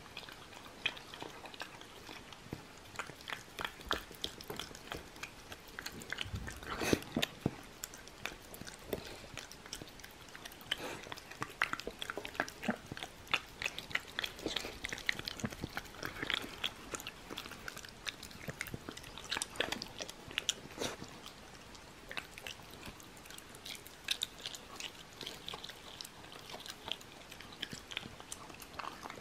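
Shiba Inu eating soft chunks of simmered persimmon and pork from a stainless steel bowl: wet chewing, licking and lip-smacking, heard as an irregular patter of small clicks.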